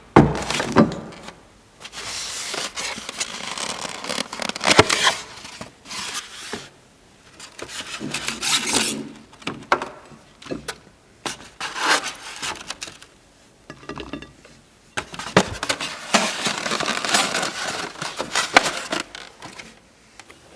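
Food and tableware being handled close up: scraping, clinking and rustling in irregular bursts a second or two long, with sharp clicks among them.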